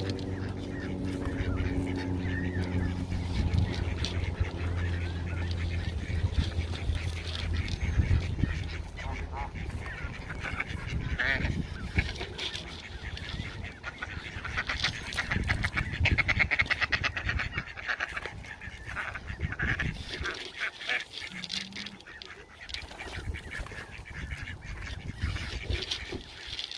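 A flock of Canada geese, goslings and mallard ducks calling as they graze: goose honks and duck quacks over many short clicks. A low steady hum runs under the first several seconds.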